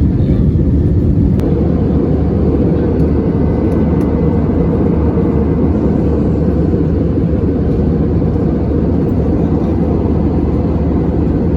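Steady drone of an Airbus A320 in flight, heard inside the passenger cabin: engine and airflow noise, mostly low in pitch. A faint click about a second and a half in.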